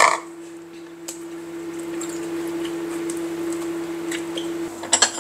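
Silicone pastry brush dabbing and smearing oil inside puto moulds: soft, wet, squishy strokes with faint ticks, so the puto won't stick. A steady low hum runs underneath and stops just before the end, when a few sharp clicks of the mould being handled come through.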